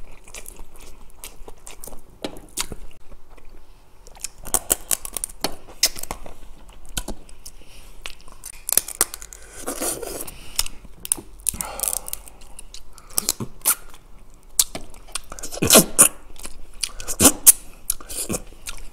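Close-miked eating of soy-sauce-marinated raw flower crab (ganjang gejang): biting and chewing on the crab, the shell crunching in many sharp clicks, with a few longer, louder mouth sounds.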